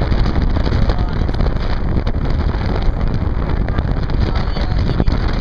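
Steady, loud rush of wind buffeting the microphone on a banana boat being towed fast over the sea.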